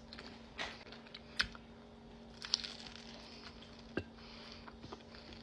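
Close-up chewing of crispy fried chicken flautas: a few sharp crunches and mouth clicks, spaced about a second apart, over a faint steady hum.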